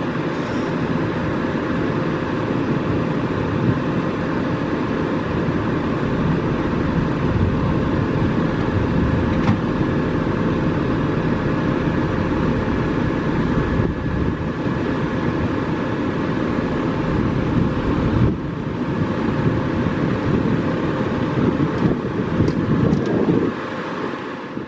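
Steady vehicle noise: a continuous rumbling hum with faint steady tones, cutting off abruptly at the end.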